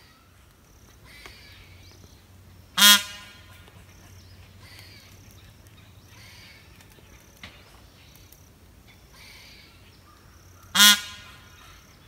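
Male Indian peafowl (peacock) giving two loud honking calls about eight seconds apart, each one short.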